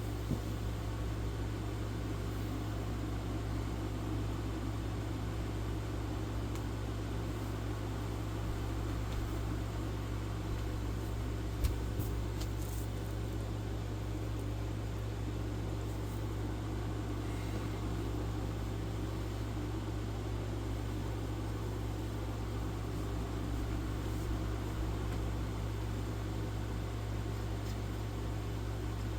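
1994 Dirt Devil Broom Vac model 712 running steadily while vacuuming, with a low hum under its motor and airflow noise. A single short click about twelve seconds in.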